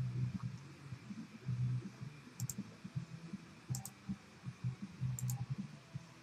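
Double clicks, four pairs spaced about a second and a half apart, typical of a computer mouse being clicked while paging through a list. Under them runs an uneven low thumping.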